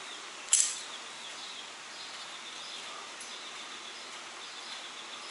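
A single sharp click about half a second in as a locking-plier hand seamer is clamped down onto a polystyrene strip. Faint high chirping runs under it against a steady low background hiss.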